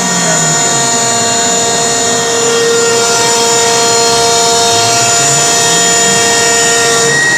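CNC router spindle running with its cutter milling a pattern into an MDF panel, with the dust extraction drawing air through the hose at the spindle shroud: a loud, steady whine of several held tones over a dense rushing noise.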